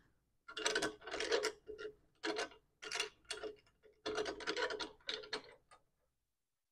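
Steel C-clamp being screwed down by hand to fasten a metal drill press vise to the drill press table: a string of short metallic scrapes and clicks from the turning screw and its handle. They stop about five and a half seconds in.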